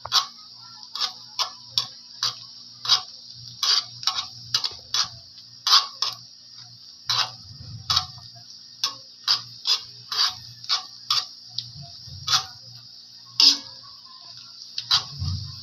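Minced garlic frying in melted butter in a pan: a steady high sizzle with irregular crackling pops, two or three a second.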